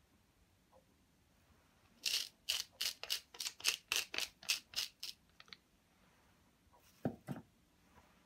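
Wooden pepper mill being twisted to grind pepper, a quick run of about eleven grinding strokes over some three seconds. Two dull knocks follow about seven seconds in.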